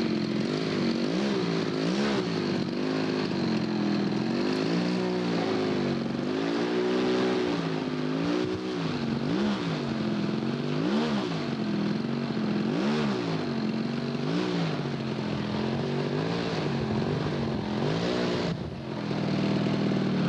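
Engine of a radio-controlled scale model airplane in flight, its pitch repeatedly rising and falling as it flies past and manoeuvres.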